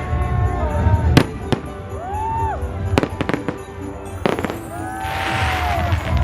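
Fireworks going off in a run of sharp, irregular bangs, with a dense crackling burst about five seconds in. Music with a steady bass beat plays underneath.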